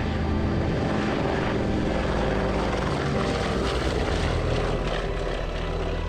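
Propeller aircraft engines running, a dense, steady sound that swells through the middle and eases near the end.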